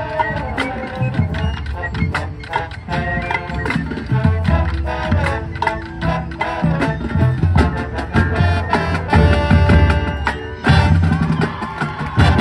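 High school marching band playing: brass chords with sousaphone bass over a drumline's rapid snare and tenor drum strikes.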